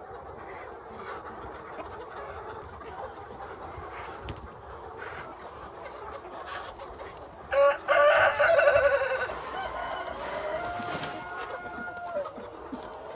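A rooster crows once, starting a little past halfway, its call ending on a long held note; hens cluck faintly in the background.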